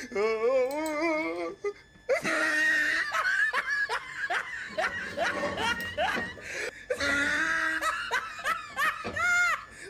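A woman laughing hard, in wavering, then rapid repeated bursts of giggles, with a short high squeal near the end.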